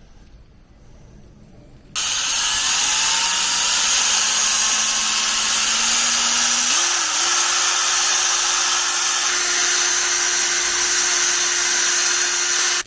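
Power drill with a paint-mixing attachment running steadily, stirring a tin of primer. It starts abruptly about two seconds in, its whine rises and steps up in speed about halfway, and it stops suddenly near the end.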